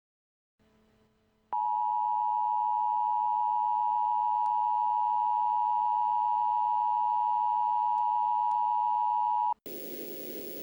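Emergency Alert System attention signal: a loud, steady two-tone beep (853 and 960 Hz together) that starts about a second and a half in, holds for about eight seconds and cuts off suddenly, leaving a faint hiss. It announces that an emergency alert message follows.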